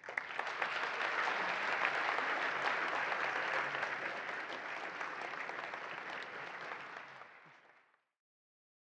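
Audience applauding, starting at once and dying away after about seven seconds.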